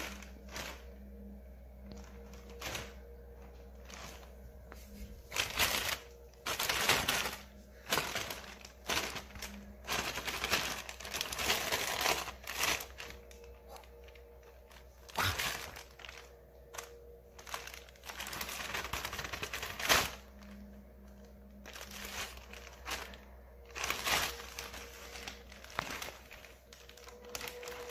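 Thin plastic bag rustling and crinkling in irregular bursts as a kitten moves about inside it.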